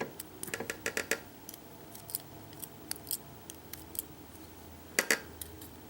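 Light metallic clicks and scrapes of small tools working at a stuck pin spring inside a gutted pin-tumbler lock cylinder: a quick run of clicks in the first second, scattered ticks, then another short cluster about five seconds in.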